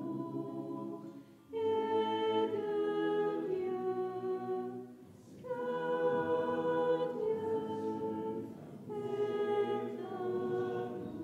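A choir of monks and nuns singing a slow liturgical chant unaccompanied, in three sustained phrases separated by short breaths.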